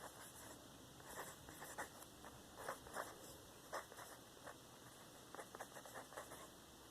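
Faint, irregular scratching of a pen on paper as a list is handwritten.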